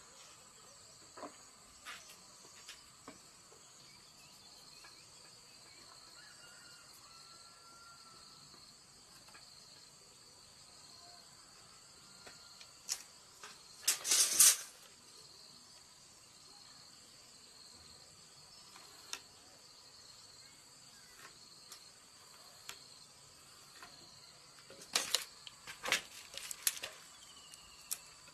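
Crickets chirring steadily in the background, with sharp wooden knocks from small boards being handled on a stack of planks: a brief clatter about halfway through and a run of taps and clicks near the end.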